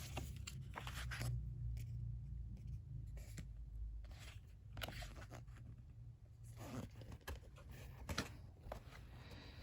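Packaging being handled and worked open by hand: faint rustling and scraping with scattered small clicks, over a low rumble that fades after about four seconds.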